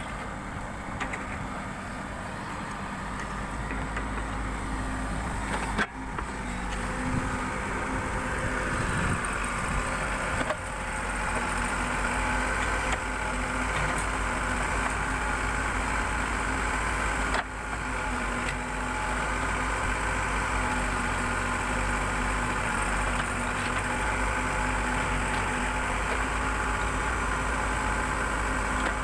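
Backhoe loader's diesel engine running steadily under work, with a steady whine on top, growing somewhat louder over the first dozen seconds; the sound breaks off for an instant three times.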